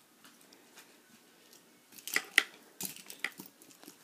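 Plastic fingerboards clicking and clacking against each other in a wooden box as a hand rummages through them. Faint handling at first, then a couple of sharp clicks about halfway and a few lighter ones soon after.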